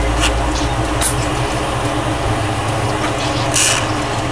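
Glassworking bench torch burning with a steady hiss, with two brief high scrapes, about a second in and near the end.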